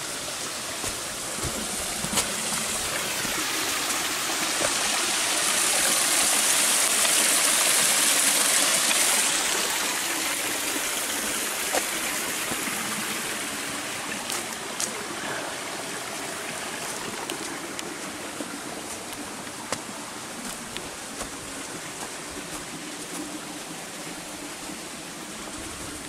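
A stream running and splashing over rocks, swelling louder for a few seconds and then fading, with scattered footsteps on a rocky trail.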